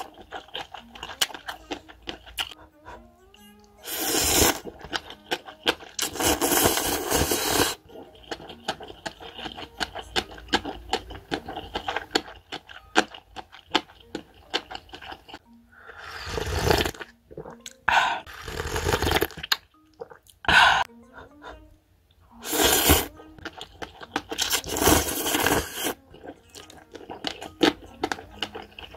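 Noodles slurped from a cup of instant ramen in several loud one-to-two-second slurps, with soft chewing and clicking sounds between them. Light background music plays throughout.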